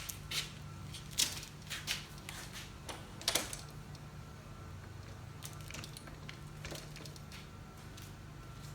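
Metal table saw parts being handled during assembly: a run of sharp clicks and light knocks over the first three and a half seconds, then only a faint low hum.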